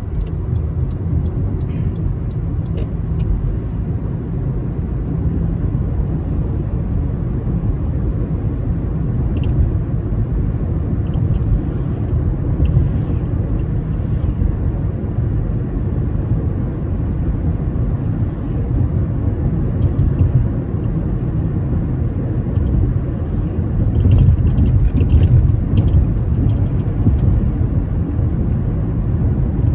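Steady low rumble of a car driving, road and engine noise, growing a little louder about 24 seconds in, with a few faint ticks and clicks.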